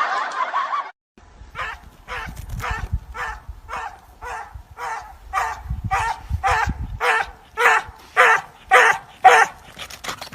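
A dog barking over and over in an even rhythm, a little under two barks a second, after a second-long burst of noise that cuts off suddenly.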